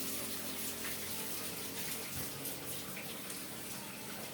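A steady watery hiss, with a few faint clicks.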